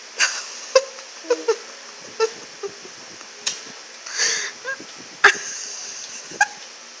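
A toddler sucking and smacking on a lemon wedge: a string of short, wet mouth clicks, the loudest a little past five seconds in, with a short breathy sound about four seconds in.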